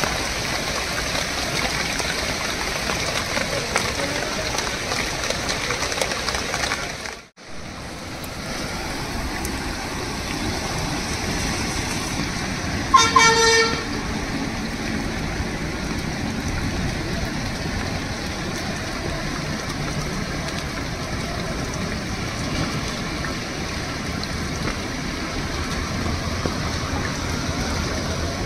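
Steady rushing noise of heavy rain and the swollen, fast-flowing river. About halfway through, a vehicle horn honks once, briefly. The sound cuts out for a moment about seven seconds in.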